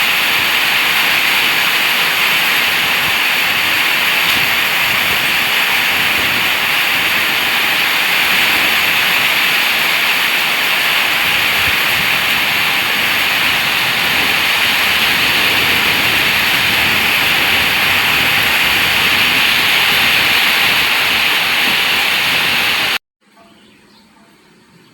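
Heavy rain falling in a steady, loud hiss, cutting off suddenly near the end to a much quieter background.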